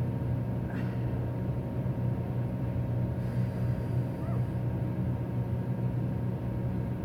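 Steady low hum of a running furnace blower, unchanging throughout, with a couple of faint brief sounds about a second in and about four seconds in.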